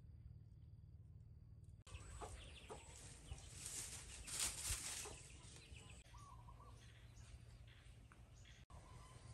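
Chickens clucking faintly in the background, with short scattered calls. A louder burst of noise comes about halfway through.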